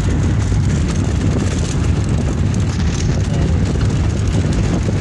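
Steady loud rumble of a moving car heard from inside the cabin: road, engine and wind noise.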